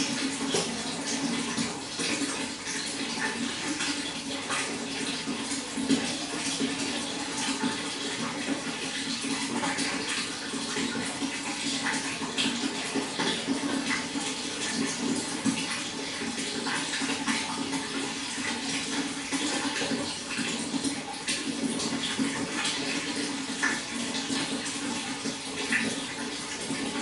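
Running water splashing steadily, with many small splashes and drips throughout.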